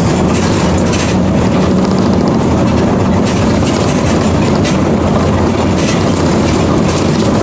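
Diesel engine of a Mercedes-Benz OF 1722 M city bus with a Marcopolo Torino body, heard from inside the cabin as the bus runs. A steady low hum comes with road noise and light rattling of the body.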